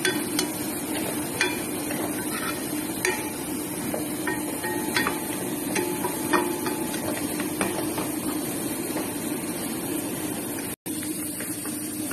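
Wooden spatula stirring dry shrimp, garlic and tomato in a white coated pot, knocking and scraping against the pot in irregular taps over a steady hiss.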